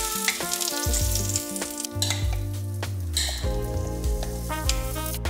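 Sizzling hiss of oat-waffle batter poured onto a hot electric waffle maker. Background music with a bass line and melody runs under it.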